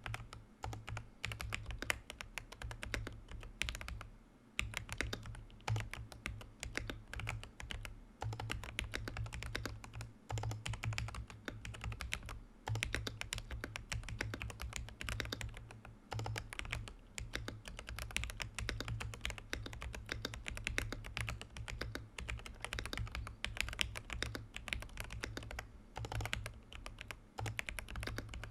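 Fast, continuous typing on the Command 65 prototype mechanical keyboard, with Holy Panda X tactile switches, a POM plate and Domikey keycaps, and its buzzer switched off. The key presses run in quick runs, with short pauses about four seconds in and near the middle.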